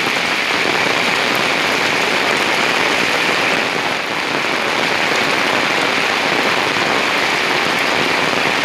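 Heavy rain falling on an umbrella held overhead: a loud, steady, dense patter.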